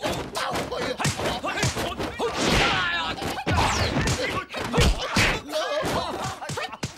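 Fight-scene sound effects: a fast run of punches, kicks and body blows, thuds and whacks one after another.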